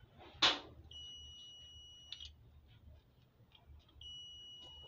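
Digital multimeter's continuity buzzer beeping as its probe tips touch connected points on a circuit board: one steady high beep lasting about a second, then a second beep starting about four seconds in. The beep signals a closed path between the probed points. A short scratchy burst comes just before the first beep, with faint clicks of the probe tips.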